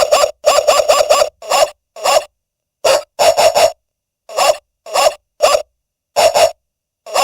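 Unicom 62172 door chime playing one of its built-in tones: a digitised animal-like call, a string of short rough calls, some in quick runs of two to four, with abrupt silent gaps between them.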